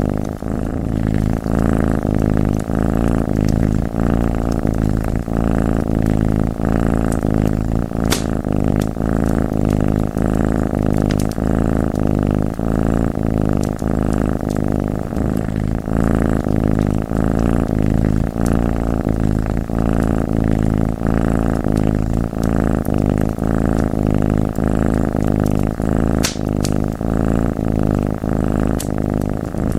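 Domestic cat purring steadily, with a few sharp pops and crackles from a wood fire, one about eight seconds in and two near the end.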